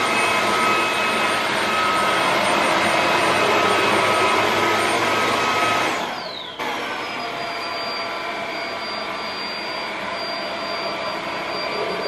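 Eufy S11 Infinity cordless stick vacuum running and sucking up granules from a hard floor: a steady motor whine over rushing air. About six seconds in it dips briefly with a falling whine, then runs on a little quieter.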